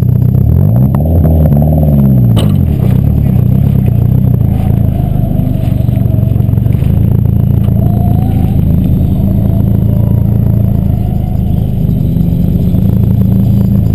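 Nissan 240SX's turbocharged SR20DET four-cylinder idling loudly, with one quick rev that rises and falls about a second in. A sharp knock a little after two seconds, the driver's door slamming shut.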